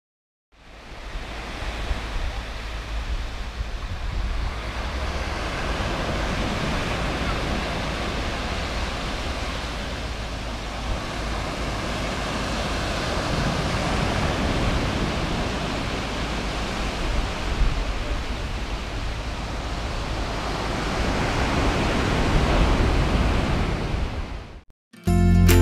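Ocean surf washing onto a sand beach: a steady, even rush of waves that fades in about half a second in and cuts off just before the end.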